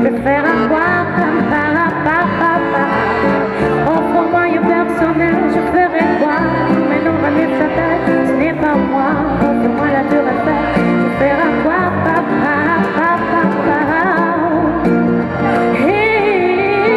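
Acoustic band music: guitar, double bass and accordion playing a song, with a bending melody line over a steady bass.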